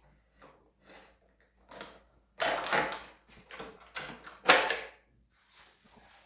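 Light clicks, knocks and rattles of parts being handled during work on a motorcycle's throttle cable, with two louder scraping, rustling bursts about two and a half and four and a half seconds in.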